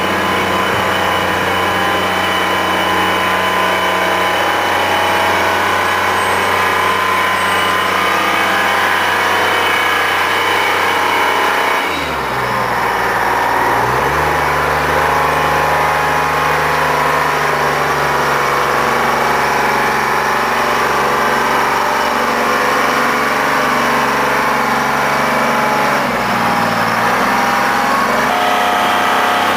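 Rough-terrain crane's diesel engine running steadily. About twelve seconds in the engine speed dips and then settles at a new steady note, and it dips and recovers once more near the end.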